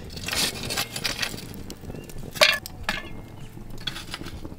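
Long metal tongs clinking and scraping as hot coals are picked from a campfire and set down on the cast-iron lid of a potjie, a string of sharp knocks and clinks, the loudest about two and a half seconds in.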